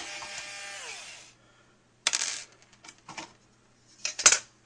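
Metallic intro sound effect. A bright ringing strike whose tones bend downward and die away after about a second is followed by several sharp metal clinks and rattles, the loudest near the end.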